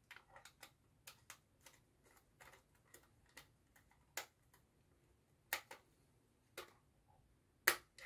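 Screwdriver turning a terminal screw on a timer relay: a string of faint, irregular clicks and ticks, the sharpest few in the second half.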